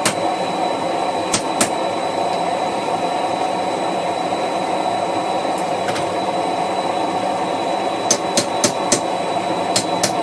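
Hammer blows driving a chisel into a hot railroad spike: a couple of sharp strikes near the start, a pause, then a run of four evenly spaced strikes and a few more near the end. The steady roar of the forge runs underneath.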